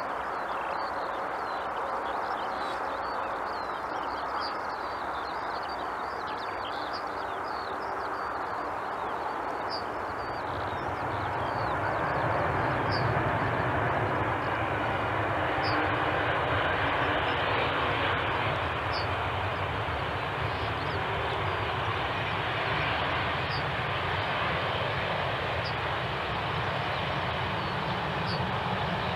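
Airbus A320-214 jet engines (CFM56-5B turbofans) as the airliner comes in to land: a steady rushing engine sound that grows louder and deeper about a third of the way in, as the aircraft reaches the runway.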